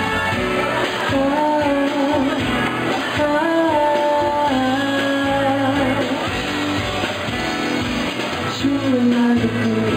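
A man singing a pop song into a handheld microphone over backing music, with held notes.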